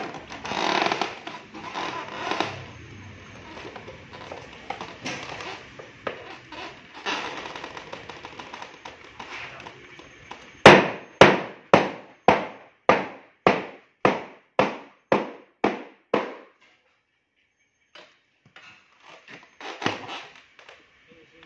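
A metal bar knocking and scraping against a fiberglass shade and its mould as the panel is pried free: irregular scrapes and knocks at first, then a quick, even run of about a dozen sharp blows, about two a second.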